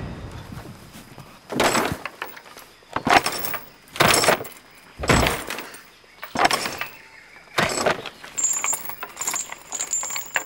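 A chained and padlocked bamboo door being shaken and banged, in repeated bursts of rattling and knocking about once a second, the metal chain and padlock jangling with each shake.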